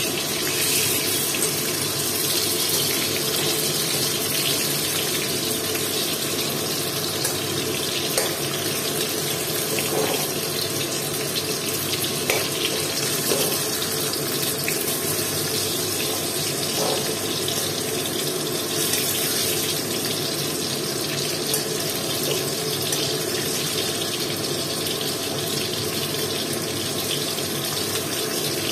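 Whole peeled potatoes sizzling steadily as they fry in hot oil in a metal kadai, with a few light clicks of a metal spatula turning them.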